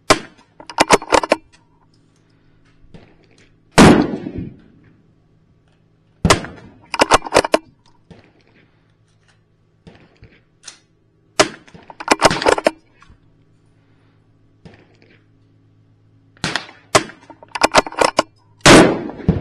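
.22 LR rifle firing SK Long Range Match ammunition from a bench, a string of sharp shots a few seconds apart. Between the shots come quick clusters of clicks, and the loudest shots ring on briefly.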